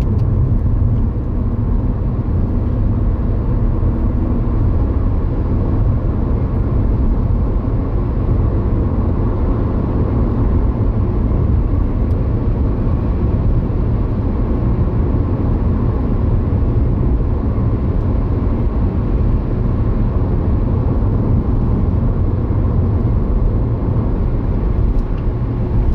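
Steady road and engine noise inside a moving car's cabin: a constant low rumble with an even hiss above it.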